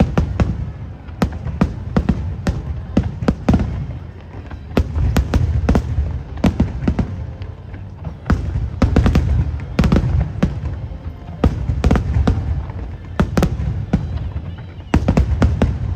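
Aerial fireworks bursting in rapid volleys of sharp bangs and crackles over a continuous low rumble.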